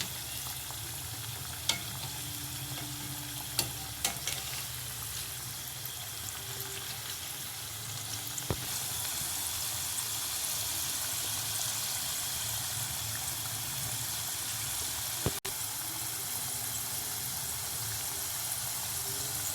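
Potato-and-maida snack pieces deep-frying in hot oil: a steady sizzle, with a few sharp clicks now and then.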